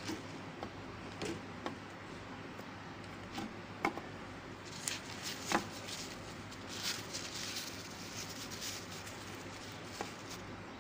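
Light hand-handling sounds of lemons being wrapped in tissue paper: a few soft knocks and taps, then a stretch of paper rustling and crinkling in the middle.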